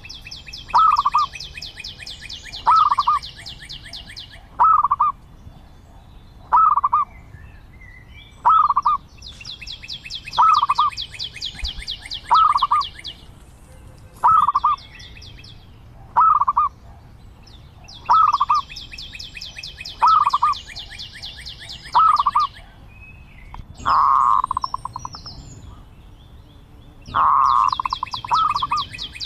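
Zebra dove calling: short clipped notes repeated about every two seconds. A higher, fast trill comes in for a few seconds at a time about every nine seconds, and a couple of longer, louder calls come near the end.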